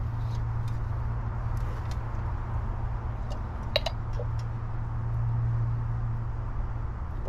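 A steady low mechanical hum runs throughout, with a few light clicks and taps, the sharpest about four seconds in, as cans of PVC primer and cement and plastic pipe fittings are handled.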